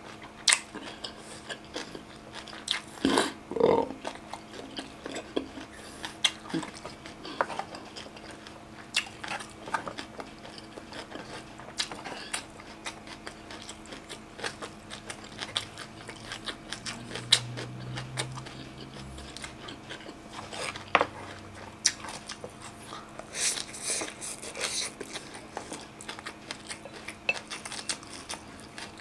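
Close-miked chewing and crunching of crisp raw food, with sharp bites and wet mouth sounds at irregular intervals over a faint steady hum.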